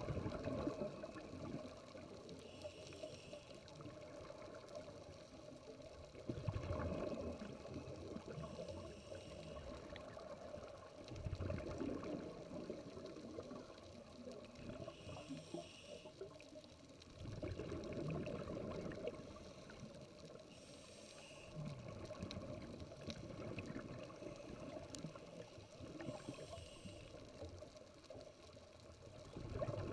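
Underwater camera audio of a scuba diver breathing through a regulator: exhaled bubbles gurgle in faint swells about every five seconds, with a soft hiss of each breath between them.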